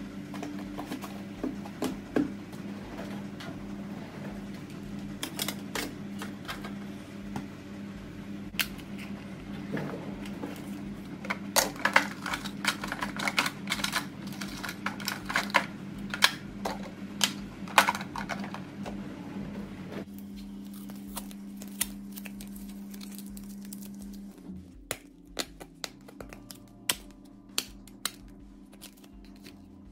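Clicks and clatter of plastic toiletry bottles and clear plastic organizer bins being picked up and set down in a drawer, over a steady low hum. The clicks come thickest in the middle and thin out to single knocks near the end.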